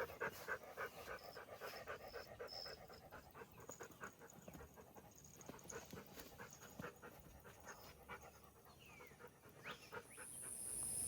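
An old dog with weak back legs panting quickly and faintly, the breaths thinning out and spacing apart after about three seconds.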